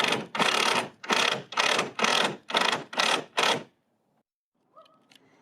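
Hand sawing through wood: a steady run of about seven rasping strokes, two a second, that stops abruptly after a few seconds.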